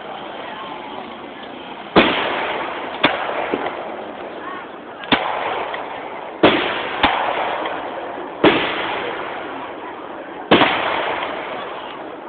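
Fireworks going off: about eight sharp bangs at uneven intervals of one to two seconds, each trailing off over a second or two.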